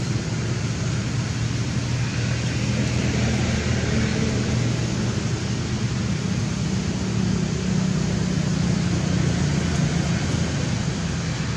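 A steady low rumble with an even hiss over it. It stays level throughout, with no distinct calls or knocks.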